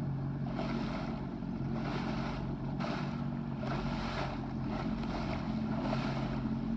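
Sea-Doo Fish Pro personal watercraft engine running with a steady low hum, while water rushes and splashes against the hull in repeated swells every second or so.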